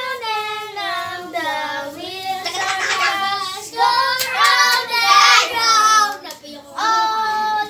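A young child singing in a high voice, a sing-song tune of short phrases, with a held note near the end.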